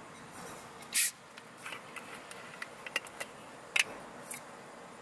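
Light handling sounds: a short scrape about a second in, then scattered small clicks and a sharper tap a little before four seconds.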